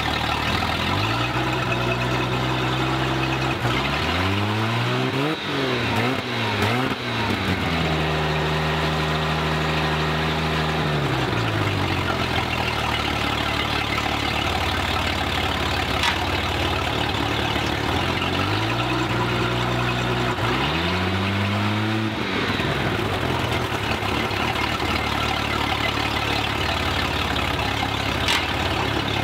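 Inboard sterndrive boat engine run on its trailer with a garden hose supplying cooling water. It is revved up and back down several times: it rises about a second in, swings up and down quickly a few times, is held higher for a few seconds, settles to idle, then rises and falls once more.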